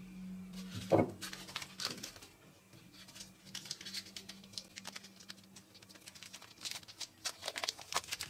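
Small metal parts of a bicycle bell being handled and fitted together: one louder knock about a second in, then light clicks and rustling, with a paper towel rubbing over the bell's dome near the end.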